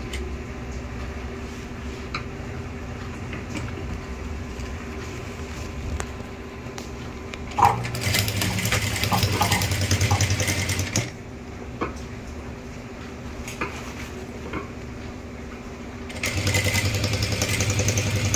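Industrial sewing machine stitching a sleeve seam in two runs: one starting about eight seconds in and lasting about three seconds, and a shorter one near the end. Between the runs there are small knocks from handling the fabric.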